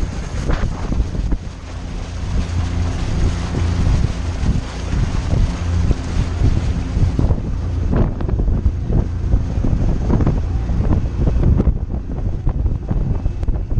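Wind buffeting the microphone on a small motorboat under way, over the steady drone of its engine and the rush of water from the wake.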